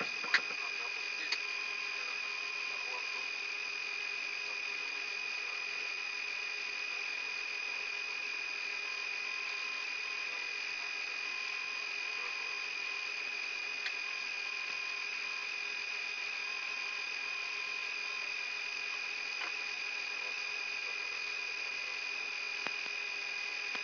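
Cockpit voice recorder audio inside a Yak-42D cockpit during engine start: a steady high-pitched whine. There is a sharp click just after the start and a few faint ticks later.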